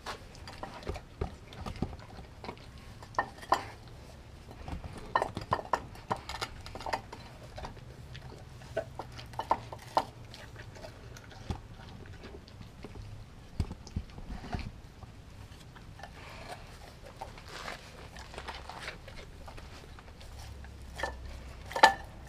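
Doberman eating a raw meal from a glass bowl: irregular wet chewing, gnawing and smacking on raw chicken, with clicks and knocks from teeth and muzzle against the glass bowl and one sharper knock near the end.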